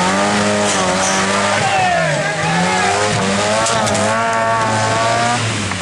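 Off-road trial 4x4's engine revving, the revs rising and falling repeatedly and easing off near the end.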